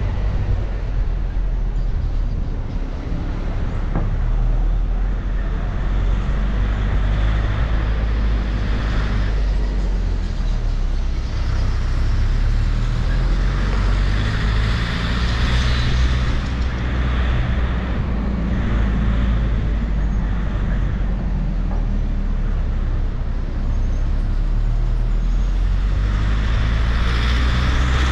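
Vehicle noise: a steady low rumble with a hiss above it that swells and fades every few seconds.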